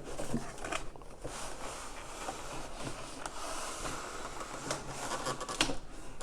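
Cardboard packaging being handled and opened: rustling and scraping, with a few sharp light knocks.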